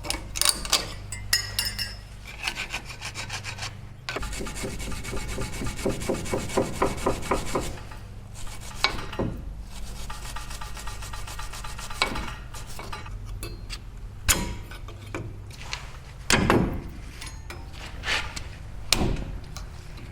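Hand tool scraping and rubbing on the truck's rusty brake hardware in runs of quick back-and-forth strokes, with a few knocks and clinks in between.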